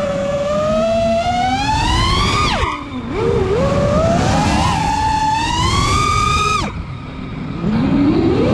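FPV freestyle quadcopter's brushless motors and propellers whining, heard from the onboard camera. The pitch climbs steadily with throttle, drops sharply as the throttle is chopped about two and a half seconds in and again near seven seconds, then climbs again near the end.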